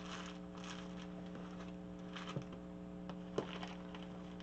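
Light rustling and a few small clicks as craft supplies are handled, over a steady electrical hum; the sharpest click comes about three and a half seconds in.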